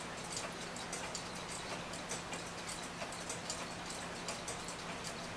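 Mechanical pendulum clocks ticking: a quick, uneven patter of ticks, as from several clocks running out of step, over a faint steady hum.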